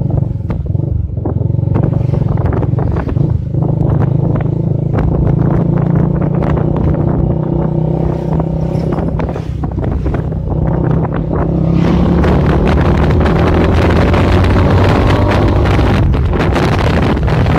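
Motorcycle engine running under way, with wind buffeting the microphone. About two-thirds of the way in, the wind rush gets louder and the engine pitch climbs slowly as the bike picks up speed.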